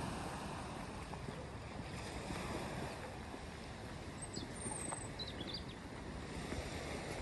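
Seaside ambience: a steady wash of wind and small waves on a rocky pebble shore, with a few brief high chirps about four to five seconds in.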